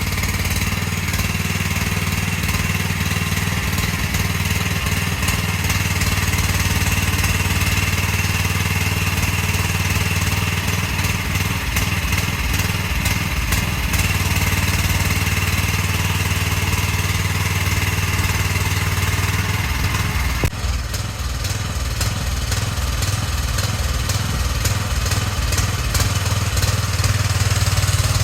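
Small engine of an AGT mini excavator running steadily, with scattered clicks and knocks over it. The sound changes abruptly about twenty seconds in.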